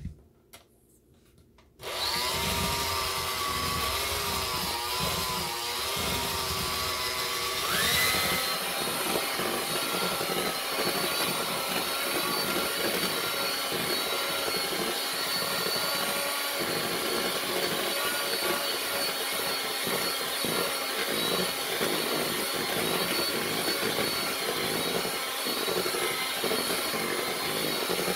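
Electric hand mixer running, its beaters whirring through a thick glaze in a steel bowl. It starts about two seconds in and its pitch rises around eight seconds in, then holds steady.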